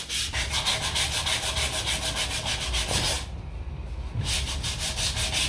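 Sandpaper scuffing a wooden speaker box by hand in quick rhythmic back-and-forth strokes, several a second. The strokes ease off briefly a little past halfway, then pick up again. It is a light sanding with 120-grit paper to key the smooth surface so a bed-liner coating will stick.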